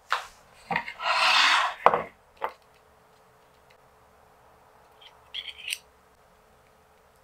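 A wooden cutting board scraping across a wooden tabletop and set down with a knock, amid a few light handling clicks. About five seconds in come a few brief light clinks as the stainless mesh sugar-dusting ball is handled.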